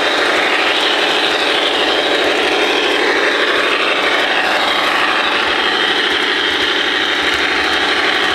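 HO scale model train running along its track, heard from on board: a steady, loud whir of the small electric motor and wheels on the rails.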